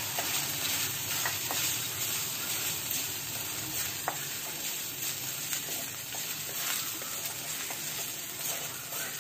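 Ginger-garlic paste and tempering spices sizzling in hot oil in a kadhai, stirred and scraped around the pan with a wooden spatula, with a few light clicks.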